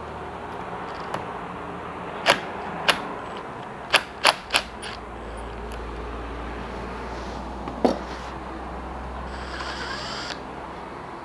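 Scattered sharp clicks and taps, three in quick succession about four seconds in, from a Makita cordless impact driver being set against a scooter's handlebar end weight to remove it. A brief whirr from the driver comes near the end, over a steady low hum.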